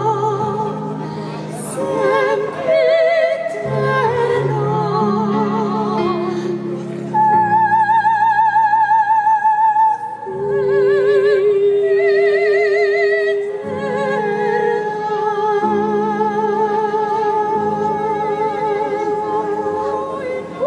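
Operatic singing: two voices with wide vibrato over steady, sustained low accompaniment notes, one voice holding a long high note from about seven to ten seconds in.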